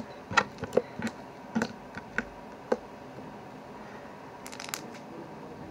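Hands stretching and squeezing soft homemade slime in a plastic tub: a string of sharp clicking pops over the first few seconds, then a short crackle a little after four and a half seconds.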